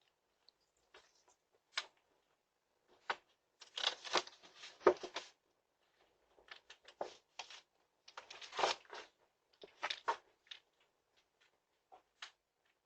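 Irregular faint rustling, scraping and clicking sounds, loudest in two clusters about four and eight and a half seconds in.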